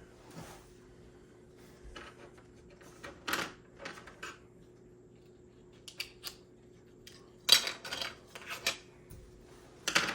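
Irregular light clicks and clatters of small plastic and metal parts and tools being handled while an HO slot car is taken apart, the sharpest ones about three, seven and a half and ten seconds in. A faint steady hum sits underneath.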